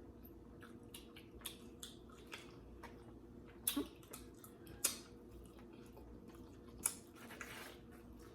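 Faint, scattered mouth clicks and smacks of someone chewing food close to the microphone, with a few louder smacks.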